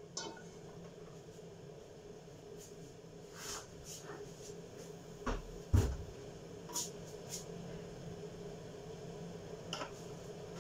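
A nonstick frying pan set down and shifted on a gas stove's grate: a light clink as it goes down, a heavier thump about six seconds in, and a few scattered light knocks, over a steady low hum.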